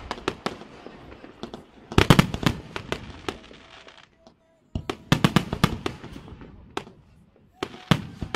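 Fireworks display: aerial shells bursting in rapid volleys of sharp bangs, each volley trailing off in a haze of crackle and echo. Volleys come about two seconds in, around five seconds in, and again near the end.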